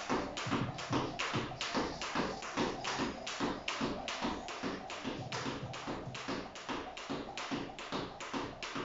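Jump rope slapping a tiled floor on every turn, a steady run of sharp taps at about three a second, with the softer thud of trainers landing under each one.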